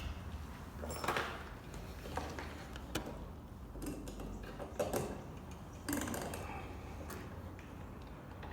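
Irregular light clicks and knocks, roughly one a second, from hands working on garage door cable hardware, over a steady low hum.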